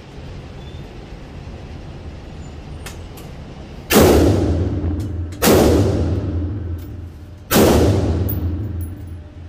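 Three gunshots from an AR-style rifle, each a sharp crack followed by a long echo off the range walls. The shots come about a second and a half to two seconds apart, starting about four seconds in.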